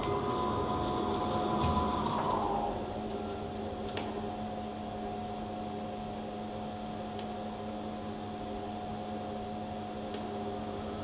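Dark horror-score drone: a steady low hum under a held higher tone, with a swell that rises and fades in the first couple of seconds and a few faint ticks.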